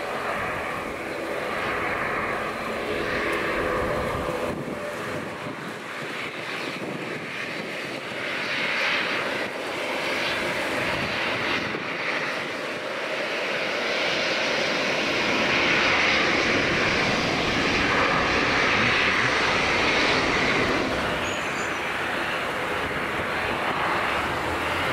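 Aircraft engines running, the sound swelling over the first half and then holding at a steady, loud level.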